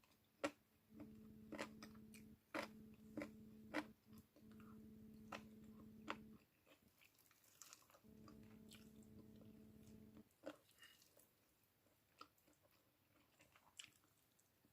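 Faint chewing and biting of arroz valenciana, with many short sharp mouth clicks. A faint steady hum comes in twice and cuts off each time.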